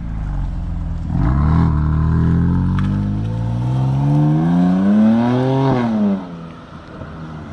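BMW M4's twin-turbo straight-six, fitted with VRSF front-facing intakes, accelerating hard as the car pulls away. The engine note climbs steadily in pitch for about five seconds, then drops sharply and fades about six seconds in.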